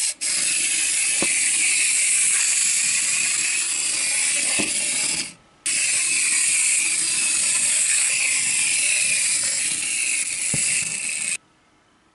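Clockwork spring motor of a small plastic wind-up toy buzzing steadily as it walks across a tabletop. There is a short break about halfway through, and the buzz cuts off near the end.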